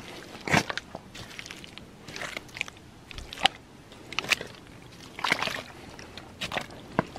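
Footsteps in boots on a wet, deep-mud trail, about one squelching step a second.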